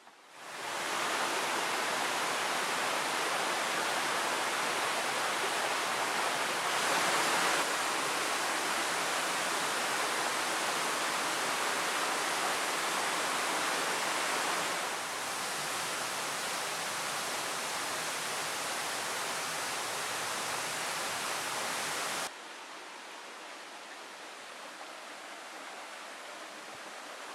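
Waterfall rushing, a steady dense roar of falling water. It comes up quickly at the start, eases slightly about halfway and drops sharply in level about three-quarters of the way through.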